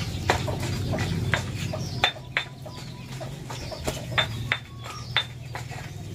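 Birds calling in short, sharp chirps at irregular intervals, over a steady low hum.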